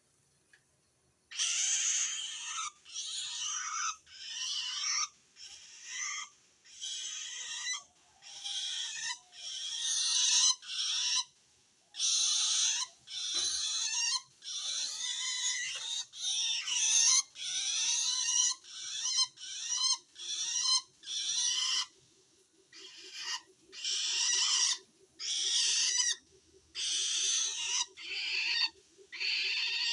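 Long-tailed shrike (cendet) giving a long run of harsh, rasping calls, roughly one a second with short gaps, starting about a second in. This call is the sound a shrike makes when it feels threatened by another shrike.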